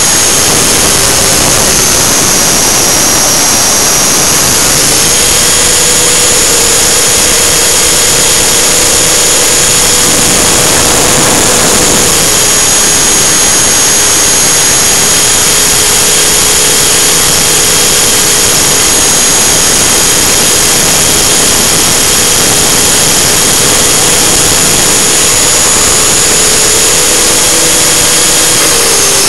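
T-Rex 600 radio-controlled helicopter heard close up from its own onboard camera: a loud, steady high-pitched drive whine with rotor and air noise. The pitch shifts slightly a few seconds in and again near the end as the power changes.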